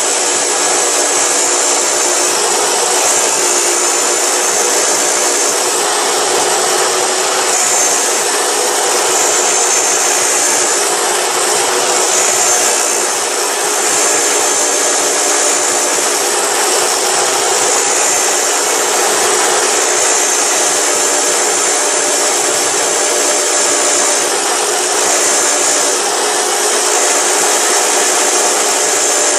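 A power tool running steadily without a break as it cuts through a wooden skateboard deck.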